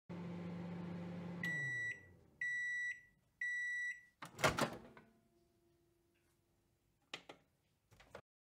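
Microwave oven humming as it runs, stopping about a second and a half in. Then three half-second beeps, about a second apart, signal the end of the cooking cycle. A louder clatter of the door opening follows, and two short knocks come near the end.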